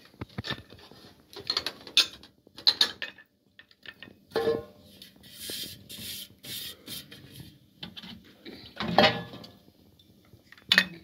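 Metal pots, a large metal tray and dishes being handled and set down: scattered clattering and knocking in bursts, with some rustling in between and a louder clatter near the end.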